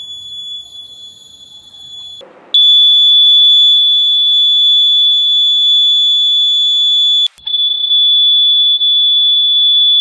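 Small electronic buzzer sounding a steady, loud, high-pitched tone. It cuts off about two seconds in, comes back louder a moment later, and drops out briefly about seven seconds in before resuming.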